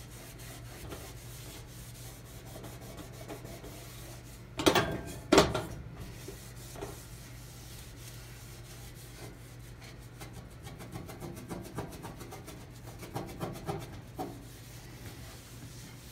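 Wet microfiber cloth rubbing across an enamel stove top, with a run of quick strokes near the end and a steady low hum underneath. Two loud sharp sounds close together a little under five seconds in stand out above the rubbing.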